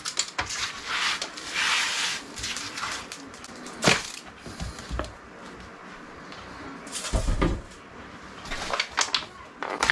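Handling noises as seasoned turkey breasts are moved into a pan: a patch of rustling near two seconds, a sharp knock about four seconds in, a low thump about seven seconds in, and scattered light clicks.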